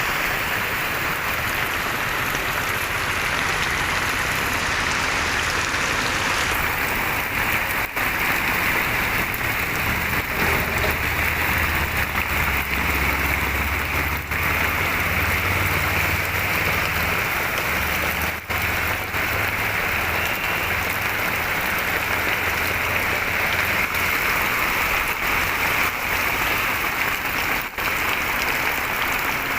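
Heavy rain pouring down steadily, a dense even hiss. A low rumble comes in underneath for several seconds in the middle.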